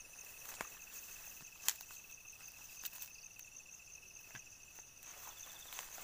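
Faint, steady high-pitched chirring of field insects such as crickets, with a few sharp clicks and crackles, the loudest about a second and a half in.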